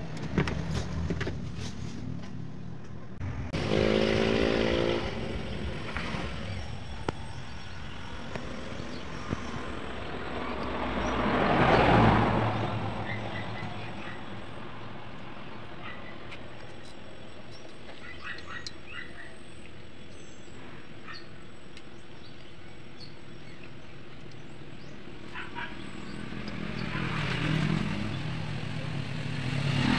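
Motor vehicles passing by twice, the sound swelling and fading around twelve seconds in and again near the end. About four seconds in there is a brief horn-like tone. A few light metallic clicks come in the first seconds as parts are handled.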